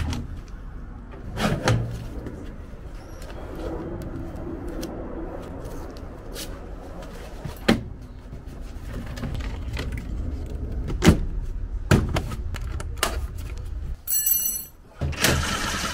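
Handling noises from a standby generator's enclosure, which is not running: the lid is lifted and the plastic air-intake housing and panels inside are moved, giving scattered clicks and knocks over a steady low rumble.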